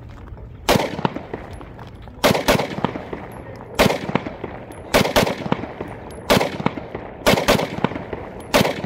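Beretta 92FS Compact 9mm pistol firing a paced string of shots, single shots and quick doubles, each crack followed by a short ringing echo. The rhythm is deliberate, a one-then-two-then-one firing cadence.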